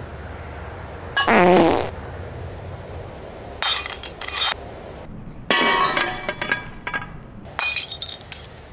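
Darts hitting a ceramic plate and shattering it: a sharp burst of cracking and clinking about three and a half seconds in, ringing clinks of shards a little later, and another sharp burst near the end. A short, loud pitched sound about a second in comes before the breaking.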